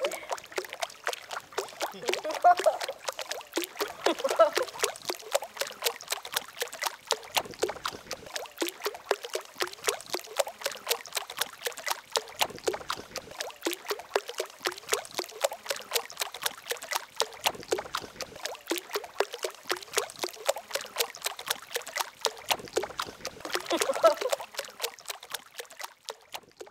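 Water trickling and lapping in a rapid, even patter of small splashes, with faint voices now and then.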